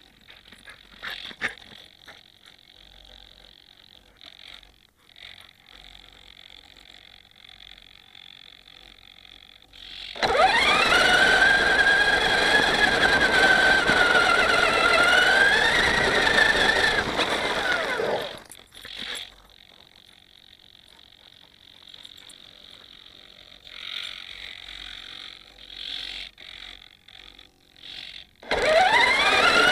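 Traxxas Summit RC truck's electric motor and geared drivetrain whining as it drives over snow, the pitch rising and wavering with speed, for about eight seconds in the middle. Near the end another run starts with a sharply rising whine. In the stops around the runs, short faint whirs of the small servos panning and tilting the FPV camera.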